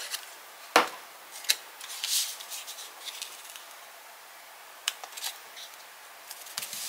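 Paper and cardstock being handled and laid down on a work surface: soft rustling with a few sharp taps and clicks, the loudest about a second in.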